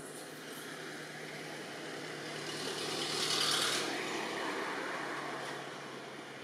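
A vehicle passing by: a rush of noise that swells to its loudest about halfway through and then fades away.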